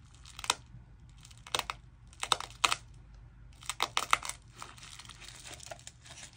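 A small plastic packet crinkling in several short, crackly bursts as it is handled and slit open with a craft knife.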